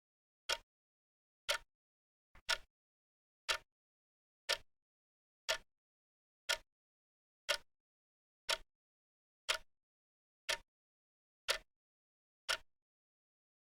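Wristwatch ticking: one short, sharp tick each second with silence between, and a fainter extra click just before the tick about two and a half seconds in.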